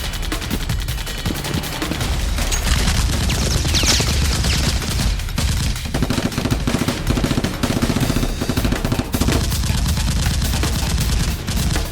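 Rapid, sustained automatic gunfire: a dense volley of shots, most likely action-film gunfire sound effects laid over the foam-blaster battle.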